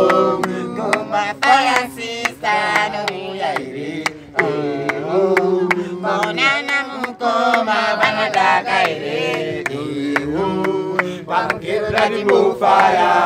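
Men singing and chanting zimdancehall together without instruments, over a beatboxed rhythm of sharp mouth clicks and pops.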